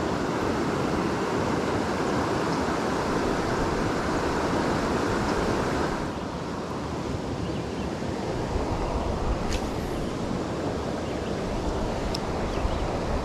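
Steady rush of a flooded creek's running water, easing somewhat about six seconds in, with low wind rumble on the microphone in the second half.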